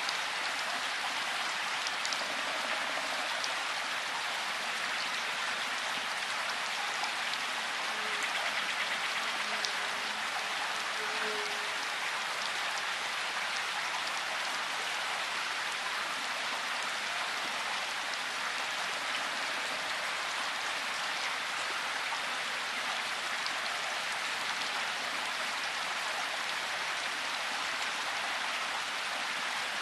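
Steady rushing hiss from a vehicle driving slowly along a grassy dirt lane, with no clear engine note.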